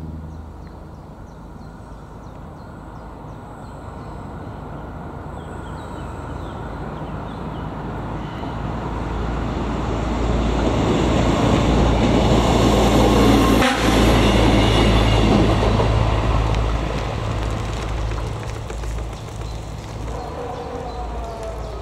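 ČD class 814 RegioNova diesel railcar approaching and passing close by. It grows louder to a peak about 12 to 15 seconds in, then fades as it moves away.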